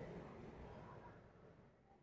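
Near silence: the stick-welding arc has just gone out, and a faint noise fades away steadily.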